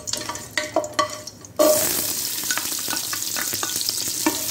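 A wooden spoon scraping and knocking whole spices around in hot oil in a metal pressure cooker. About a second and a half in, a sudden loud burst of sizzling as sliced onions go into the hot oil. The sizzling then carries on steadily while the spoon keeps stirring.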